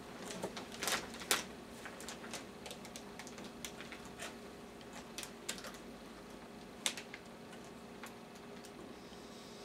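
A computer motherboard being handled: scattered light clicks and taps as fingers work at its parts, a few sharper ones early and one about seven seconds in, over a faint steady hum.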